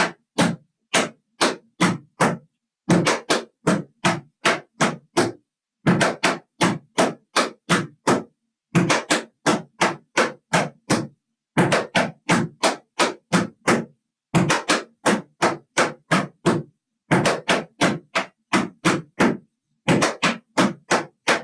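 Metal taps on tap shoes striking a plywood dance board: quick runs of taps in repeated phrases about every three seconds, with a short pause between each. The pattern is the triple time step, hop-shuffle-step, flap, ball-change, danced over and over.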